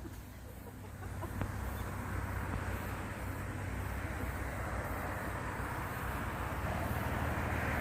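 A steady low rumble with a hiss over it, growing a little louder about a second in, from the direction of the sea. The uploader calls it a very strange sound.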